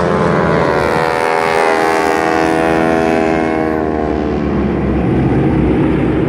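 A propeller airplane flying past, its engine and propeller drone dropping steadily in pitch as it goes by, then running on at a lower, steady note.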